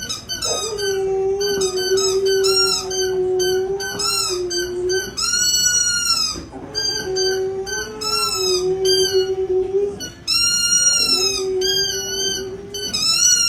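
A dog howling along to music, with long drawn-out howls that rise and fall over a melody of short, repeated instrumental notes.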